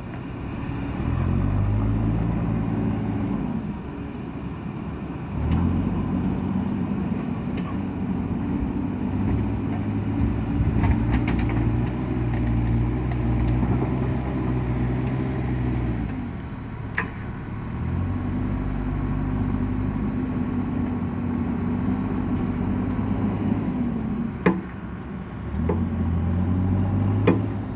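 JCB construction machine's diesel engine revving up and holding high revs in several long spells, dropping back between them, with a few sharp clanks scattered through.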